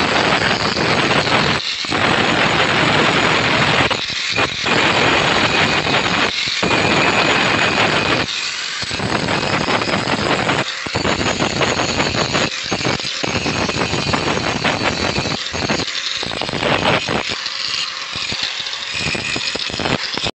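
Angle grinder's abrasive disc grinding leaf-spring steel: a harsh, steady grinding that drops out briefly several times as the disc comes off the metal, and eases somewhat near the end.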